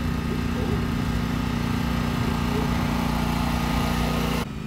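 John Deere Z648M stand-on mower's 22-horsepower commercial Kawasaki engine running steadily while the mower drives up a diagonal slope. Near the end the sound drops suddenly to a quieter level.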